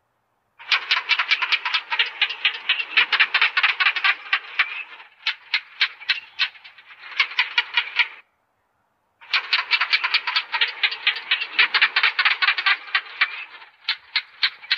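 Gecko chirping: fast trains of sharp clicking chirps, about eight a second, in runs of several seconds. Two short silences break them up, and a few slower, spaced chirps come between the runs.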